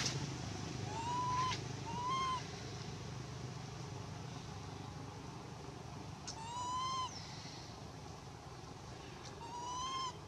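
Infant macaque crying: four short, thin coos that rise slightly in pitch, two close together near the start, one in the middle and one near the end.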